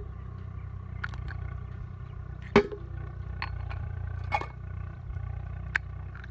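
Ice cube dropped into a stainless steel bowl, one sharp clink about two and a half seconds in, followed by a weaker knock and a thin click. A steady low hum runs underneath.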